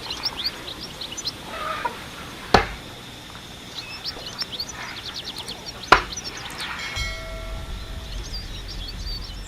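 Small birds chirping and a chicken clucking, with two sharp knocks, one about a quarter of the way in and one past halfway.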